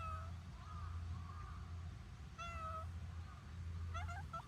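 Cats meowing: a meow right at the start, another about two and a half seconds in, and a quick run of short broken meows near the end, with fainter higher calls in between. A steady low hum runs underneath.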